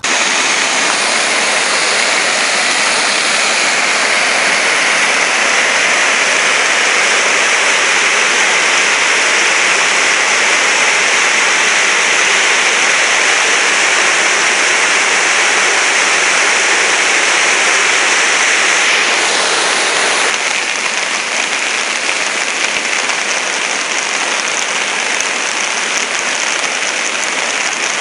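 Canal swollen by storm rain, fast muddy floodwater rushing along it in a steady rush of noise, near to overflowing. The sound drops a little in level about twenty seconds in.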